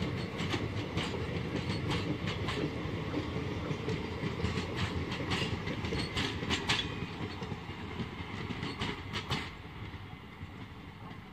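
Indian Railways express passenger coaches rolling past, their wheels clacking over the rail joints in uneven runs of clicks over a steady rumble. The sound fades as the last coach draws away near the end.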